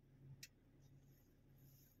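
Near silence: a faint low room hum with a single light click about half a second in.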